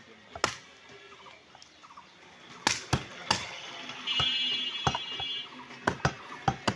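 Butcher's cleaver chopping beef: about nine sharp chops, one early on its own, then singly and in quick runs of two or three. A high-pitched steady tone sounds for about a second and a half around the middle.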